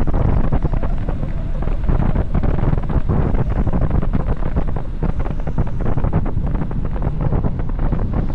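Loud, steady wind buffeting on the microphone of a bicycle descending at high speed, a constant low rumble with rapid flutter.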